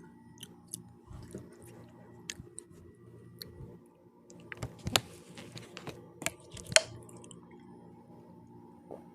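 Close-up chewing and mouth sounds of someone eating pizza: scattered wet clicks and smacks, loudest about halfway through and again near the seven-second mark.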